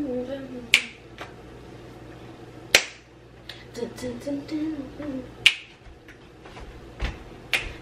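Four sharp finger snaps about two to three seconds apart, keeping time for a dance. A soft voice hums between them.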